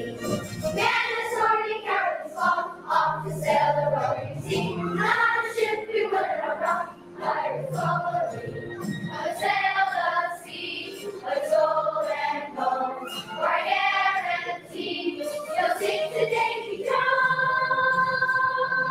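A school choir of young students sings with musical accompaniment that keeps a steady beat. Near the end the choir holds one long chord.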